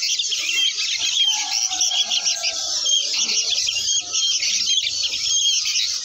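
Many caged songbirds chirping at once in a dense, continuous chorus of short, high twitters.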